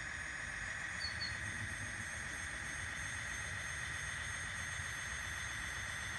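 Electric drive motor and gears of an RC scale Unimog with a front sweeper whining steadily as the truck crawls forward over wooden boards, with a low rumble underneath.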